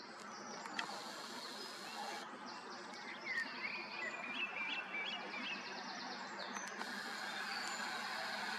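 Outdoor evening ambience: a steady low background hum with birds chirping, a few quick chirps around the middle. Twice a high hiss starts and stops abruptly, fitting the camera's zoom motor as the lens zooms out.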